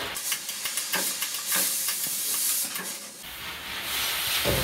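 Ratchet strap being ratcheted tight, a quick irregular run of clicks from its ratchet handle over a steady high hiss. The clicks stop about three seconds in, leaving the hiss, and a dull thump comes just before the end.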